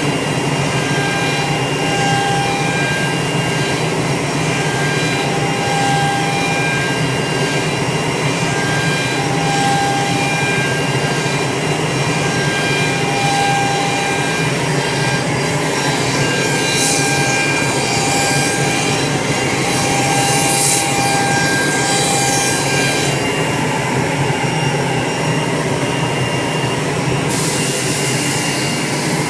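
CNC router spindle running steadily as it cuts wood, a continuous machine whine with cutting noise over it.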